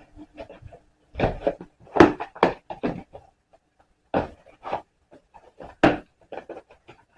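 A cardboard kit box being handled and pried open: an irregular run of sharp knocks, taps and scrapes, the loudest about two seconds in and again near six seconds.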